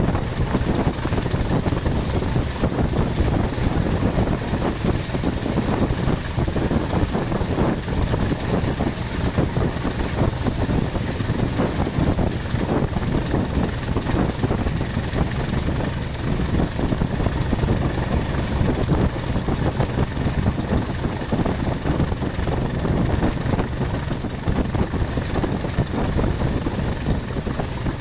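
Class 20 diesel locomotive running on the move, its engine noise mixed with the rumble of wheels on the rails, with a thin steady high-pitched whine over it.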